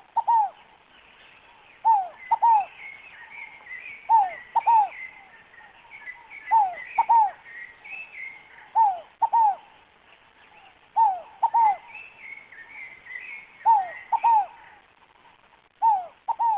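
Scaled dove (rolinha fogo-apagou) cooing: a phrase of two falling coos, repeated about every two seconds. Fainter, higher twittering of small birds runs behind it.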